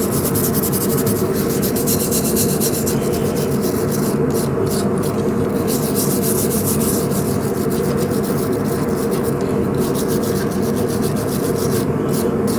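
Wire brush scrubbing forge scale off a freshly forged steel knife blade, a steady, fast scratching.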